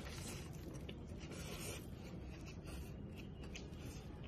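Faint eating sounds: a mouthful of rice being chewed by hand-eating, with scattered small wet clicks and soft rustles of fingers in the food.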